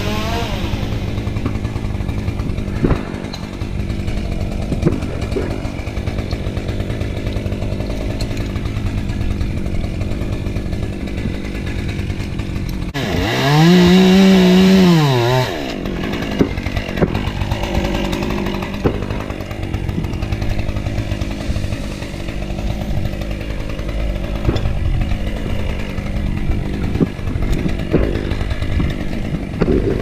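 Chainsaw running during tree cutting. About halfway through it is throttled up hard for two or three seconds, its pitch rising and then falling back, before it drops to a lower running sound again.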